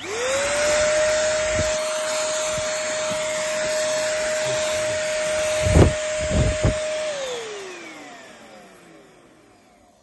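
Bolde vacuum cleaner switched on, its motor whine rising at once to a steady high pitch, with a few short knocks about six seconds in. It is switched off about seven seconds in, and the whine falls away as the motor spins down.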